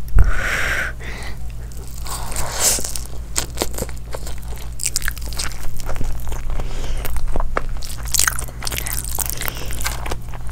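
Close-up biting and chewing of crisp food: a rapid, irregular run of crunches and crackles.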